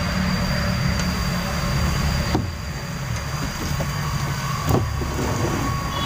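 Steady low engine rumble, with a sharp knock about two and a half seconds in and a thud near five seconds as heavy loudspeaker cabinets are moved and stacked.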